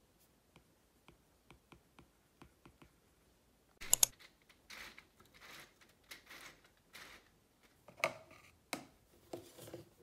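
Light ticks of a stylus tip tapping and writing on a tablet's glass screen, two or three a second. About four seconds in, a sharp clack, followed by a run of rustling, scraping noises with a couple of louder knocks near the end.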